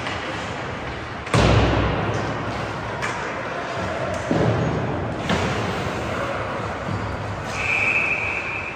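Ice hockey play in a rink: one loud slam against the boards about a second and a half in, then a few lighter knocks of sticks and puck. Near the end comes a steady high whistle lasting about a second.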